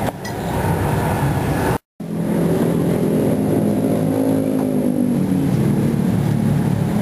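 Motor vehicle traffic running steadily, with an engine note that rises and falls in the middle as a vehicle passes. The sound breaks off completely for a moment just before two seconds in.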